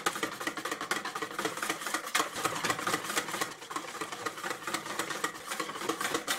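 Wire whisk beating thin blini batter in a mixing bowl, the wires clicking and tapping rapidly and steadily against the bowl as sunflower oil is whisked in.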